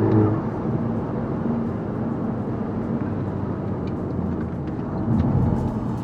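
Audi S3 8P's turbocharged 2.0 TFSI four-cylinder heard from inside the cabin while driving: a steady engine hum with road and tyre noise, the engine note clearest at first and swelling briefly about five seconds in.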